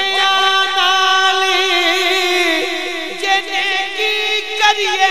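A man singing a Punjabi naat into a microphone, drawing out one long held note and then turning it with wavering ornaments from about three seconds in.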